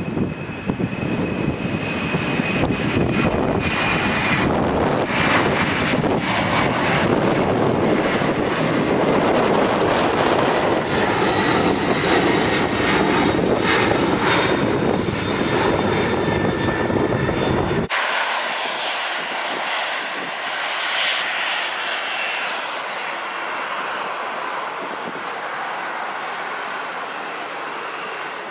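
Boeing 767 twin jet engines at take-off thrust, a loud, full rushing roar as the jet lifts off and climbs away. About 18 seconds in the sound cuts abruptly to a quieter, steady, high-pitched whine from a Boeing 737-800's jet engines on the runway.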